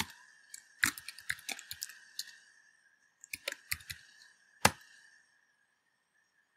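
Computer keyboard keystrokes in short, irregular runs of clicks, with one louder keystroke near the end of the typing, which stops about five seconds in.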